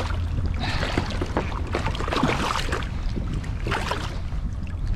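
Water splashing irregularly as a hooked striped bass thrashes at the surface beside a kayak while it is grabbed by hand, over a steady low wind rumble on the microphone.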